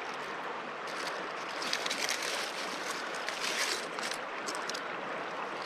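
Creek water running steadily. From about a second in until near the end there are uneven crackling rustles of dry fallen leaves as a hand searches through them at the water's edge.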